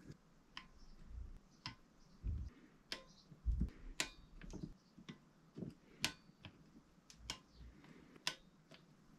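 Click-type torque wrench clicking as it reaches its low 3 N·m setting on the small screws of a bicycle hub, one sharp click about every second, with dull knocks from handling in between.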